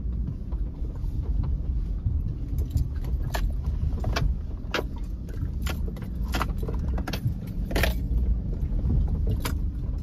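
Truck driving on a rough dirt road: a steady low engine and road rumble, with a dozen or so sharp clinks and rattles of loose gear jolting.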